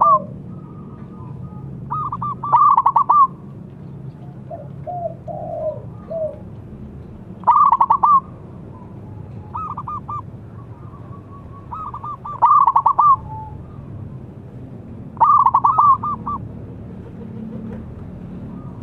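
Zebra dove (perkutut) cooing: about five phrases of quick, stuttering notes, one every two to three seconds. Softer, lower calls come in between.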